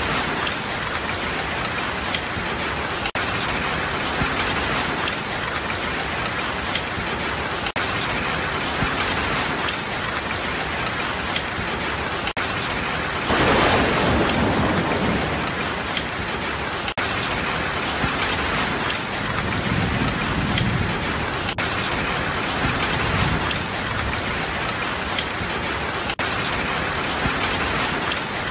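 Heavy rain pelting an asphalt parking lot and parked cars: a dense, steady hiss. About halfway through there is a louder surge, and low thunder rumbles a few seconds later.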